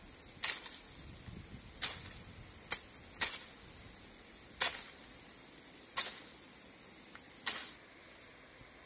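A long pole knocking oranges loose in an orange tree: seven sharp knocks at irregular intervals, each trailing off in a brief rustle of leaves and branches.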